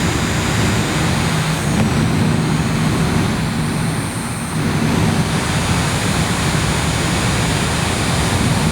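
Miniature air conditioner's fan running steadily: a rush of air over a low motor hum.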